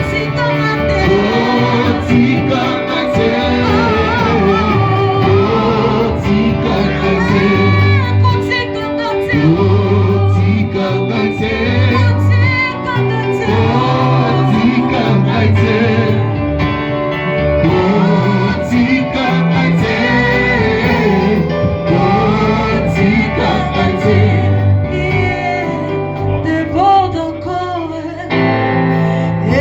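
Gospel music with singing voices over a steady bass and guitar accompaniment.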